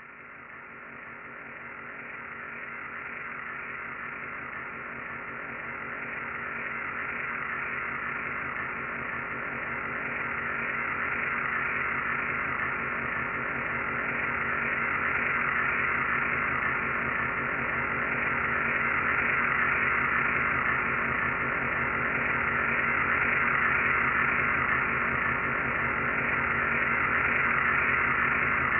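Sci-fi spaceship hovering sound effect: a steady drone of several held tones over a hiss, slowly growing louder.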